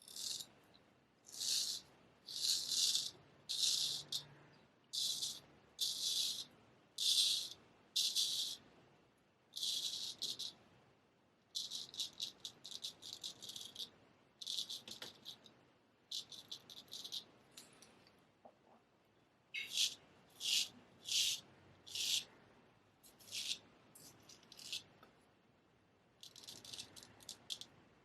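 1964 Olympia 13/16 straight razor shaving through beard stubble: a series of short, crisp scraping strokes, about one a second at first, later in quicker, choppier runs.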